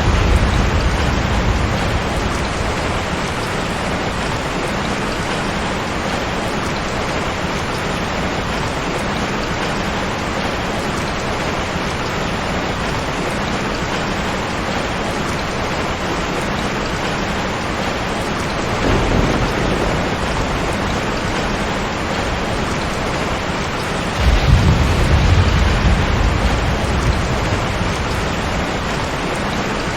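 Steady rain hiss with rolls of thunder: a rumble fading away in the first seconds, a brief low one about two-thirds of the way in, and a louder, longer roll a few seconds before the end.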